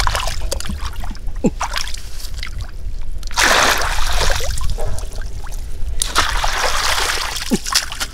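Shallow water splashing and sloshing, with scattered knocks and two longer bursts of splashing in the second half.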